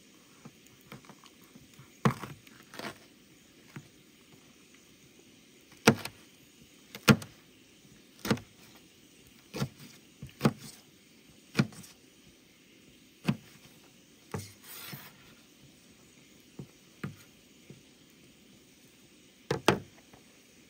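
Chef's knife cutting a sweet pepper on a plastic cutting board: single sharp knocks of the blade hitting the board, about a dozen spread irregularly one to two seconds apart.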